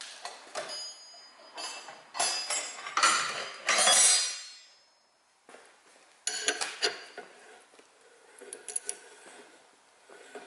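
Metal parts of a Rolls-Royce Silver Shadow brake accumulator valve clinking and scraping as they are handled and fitted, some strikes ringing briefly. A dense run of clinks and scrapes stops about halfway. After a short pause the clinks start again, then thin out to light ticks.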